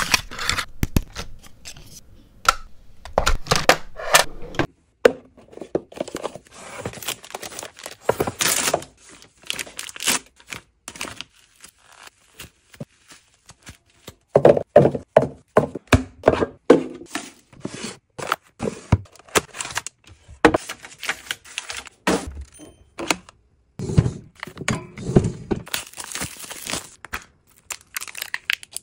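Household items being unpacked and put away by hand: a steady run of small knocks, taps and clicks as things are set down and fitted into place, with stretches of crinkling, rustling packaging.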